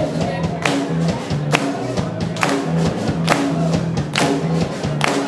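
Live rock band playing an instrumental stretch of an upbeat song with a steady drum beat and bass line, no singing.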